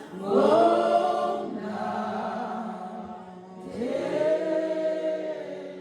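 Voices singing unaccompanied in harmony, a slow church chorus in long held notes. One phrase swells in just after the start and a second begins about four seconds in.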